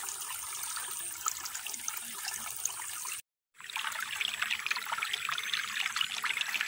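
Shallow rocky stream trickling and babbling over stones, with many small splashes. The sound breaks off completely for a moment about halfway through, then resumes a little louder.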